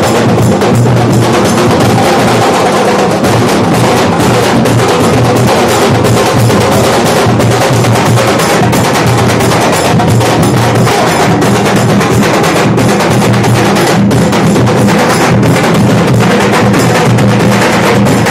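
Nashik dhol ensemble drumming loudly: several large double-headed dhols beaten in a fast, dense, unbroken rhythm.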